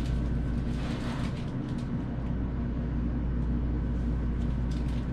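Steady low background hum with no distinct event.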